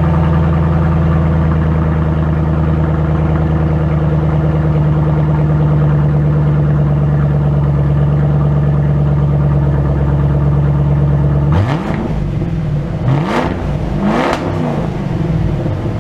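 Roush 427R Mustang's supercharged V8 idling through an aftermarket exhaust, then revved three times in quick blips near the end before settling back to idle.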